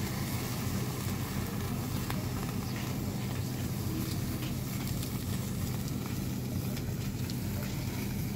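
Charcoal fire flaring under a whole catfish on a grill, crackling and sizzling, with faint scattered crackles over a steady low hum.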